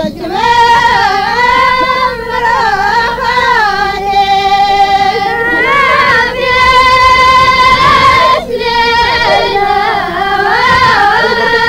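Ahwach, the Amazigh collective song of southern Morocco: a high sung line holding long, wavering notes that slide up and down, with a brief break about eight and a half seconds in.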